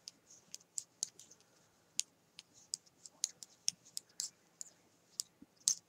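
Metal knitting needles clicking against each other as stitches are knit by hand, a few irregular light clicks a second.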